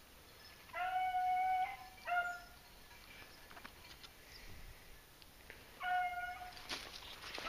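Beagle baying: three drawn-out cries held on one pitch, the first about a second long, a short one right after, and a third about half a second long some seconds later.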